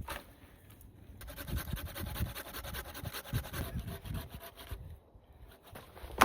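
Irregular scraping and rustling that starts about a second in and stops near the end.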